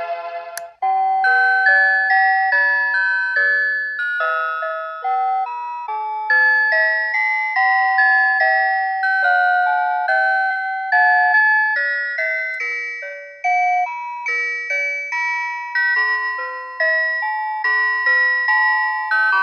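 Citizen Moulin alarm clock playing one of its electronic alarm melodies: a tune of clear, bell-like notes, each dying away. It starts just under a second in, after a click and a brief gap.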